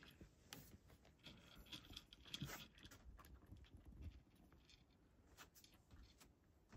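A cat eating from a dish: faint, irregular clicks and crunches of chewing.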